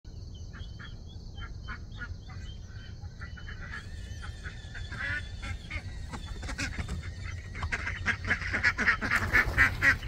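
Ducks calling, short scattered calls at first, then a rapid string of louder quacks over the last couple of seconds.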